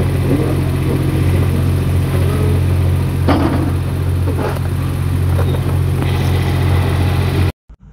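Kobelco hydraulic excavator's diesel engine running steadily under working load, with a deep, even hum. The sound cuts off abruptly near the end.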